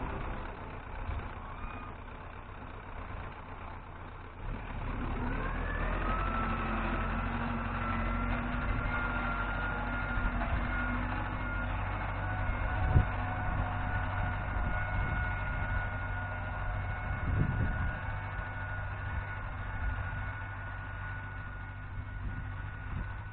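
Farm tractor engine running as it pulls a plough, over a steady low rumble; its note rises about five seconds in and then holds steady. A sharp knock comes about halfway through.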